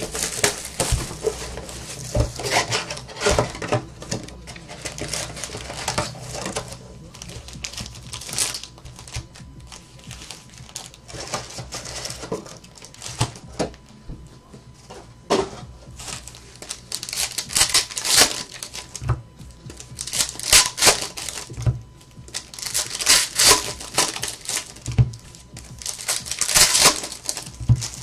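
Foil trading-card packs from a box of 2014 Panini Elite Extra Edition baseball rustling and crinkling as they are handled and stacked, with a few thumps as packs are set down on the table.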